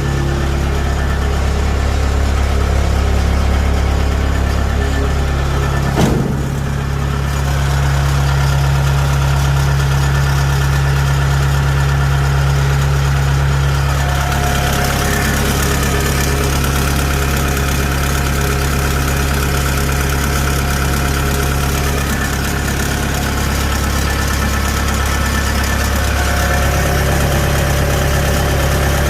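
Kubota DC70H rice combine harvester's diesel engine running steadily, with one sharp knock about six seconds in and the engine note shifting slightly twice later on.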